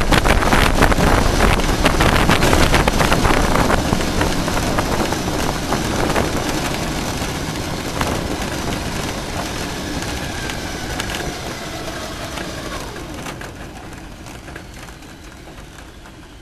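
Wind rush and tyre noise of a land-speed car coasting down on a dirt lakebed under its drag parachute, dying away steadily as the car slows. A faint whine falls in pitch partway through, with a few knocks from the surface, one about eight seconds in.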